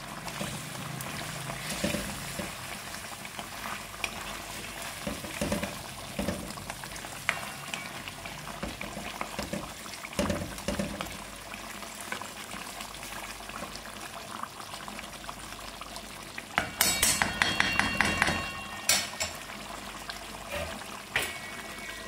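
Chicken karahi bubbling and sizzling in a steel karahi while a spatula stirs it, with scattered scrapes and knocks against the pan. A burst of louder metal clatter comes near the end, as the steel lid goes onto the pan.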